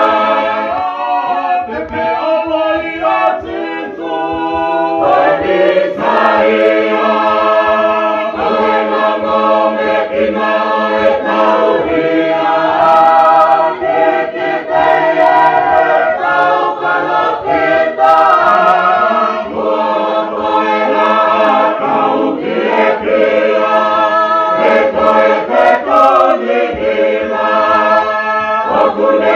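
A choir singing a Tongan church hymn, many voices holding long notes together in harmony.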